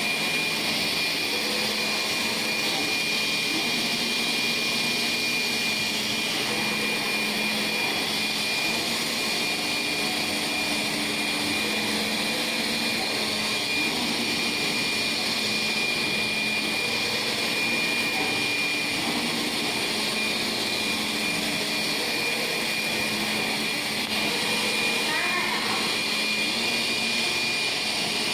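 Orient Longke UV 2513 flatbed printer running: a steady whir like a vacuum blower, with a constant high-pitched whine over it.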